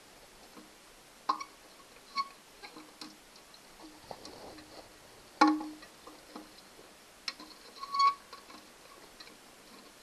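Plastic flush-valve tower parts being handled and pushed down inside a porcelain toilet tank: a handful of scattered sharp clicks and knocks with a brief ring, the loudest about halfway through.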